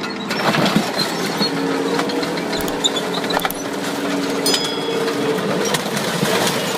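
A heavy machine's engine running steadily, with many sharp clanks, cracks and knocks over it.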